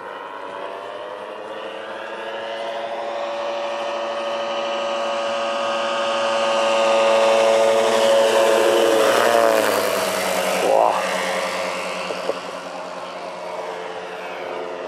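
Engine of a giant 5.3 m radio-controlled Bücker Jungmeister scale biplane in flight, making a low pass. It grows steadily louder as the plane approaches, then drops in pitch as it passes by about ten seconds in and becomes quieter as it climbs away.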